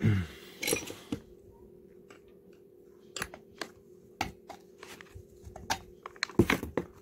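Scattered light clicks and taps of hands handling a chainsaw's plastic housing, a metal pick and a cord, with a short scraping sweep at the very start and a quicker run of clicks near the end.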